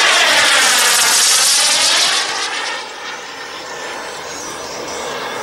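JetCat turbine of a Top-RC Odyssey model jet making a low pass: a loud rushing hiss that drops off about two and a half seconds in as the jet passes and moves away, then carries on quieter.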